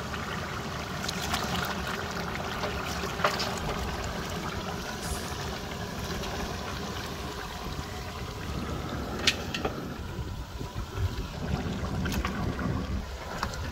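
Hot masala, its oil separated, sizzling in a large aluminium cooking pot as handfuls of raw goat meat are dropped in, with a few sharp clicks. A steady low rumble of wind on the microphone runs underneath.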